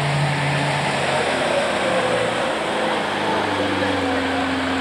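Off-road 4x4 engine running under load in deep water, its revs shifting about two seconds in and rising near the end.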